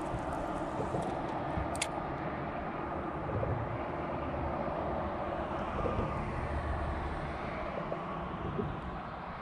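Steady rumble of traffic crossing a nearby highway bridge, swelling and easing as vehicles pass, with one sharp click about two seconds in.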